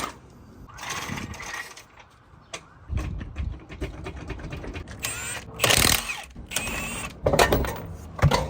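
Mechanical ratcheting and metal clatter of hand tools, with a low rumble joining about three seconds in.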